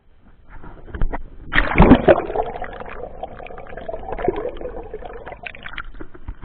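Sea water splashing as an action camera is plunged under the surface, then gurgling and sloshing around the submerged camera with many small clicks. The loudest splashes come about one and a half to two seconds in, and the sound eases off near the end.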